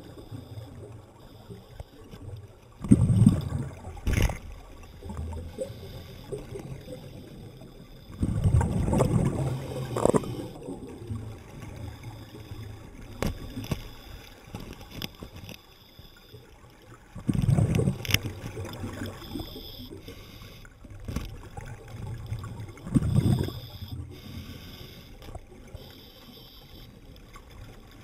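Scuba diver's exhaled breath bubbling out of the regulator underwater: four loud gushes of bubbles several seconds apart, with faint water noise and a few small clicks between.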